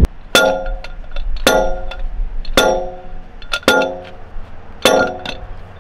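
A sledgehammer strikes the steel shaft of a Toyota Tacoma CV axle five times, about one blow a second. Each blow gives a ringing metallic clang. The blows are meant to drive the CV joint off the shaft, and the joint is not yet coming free.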